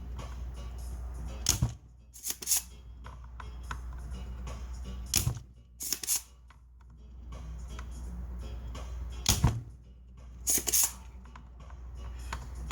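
Desoldering work on an amplifier circuit board: a sharp click followed by short hissing bursts, repeated three times about four seconds apart, over a steady low hum.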